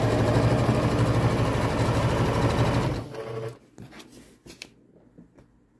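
Electric sewing machine stitching at a steady speed, its motor humming with the fast patter of the needle, then stopping about three seconds in. Faint clicks of handling follow.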